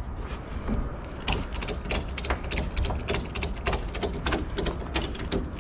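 Ratchet tie-down strap being cranked tight: the ratchet's pawl clicking in a steady rhythm of about four clicks a second, starting about a second in.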